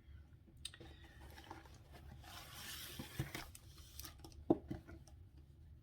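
Diamond painting kit packaging being handled: a stretch of paper or plastic rustling and crinkling in the middle, with a few light taps and knocks. The sharpest tap comes about four and a half seconds in.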